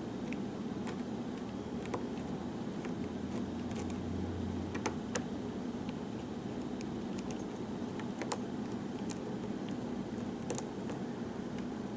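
Light, irregular metallic clicks of a hook pick and tension wrench working the pins of a pin-tumbler challenge lock, with two sharper clicks about five seconds in, over a steady low hum.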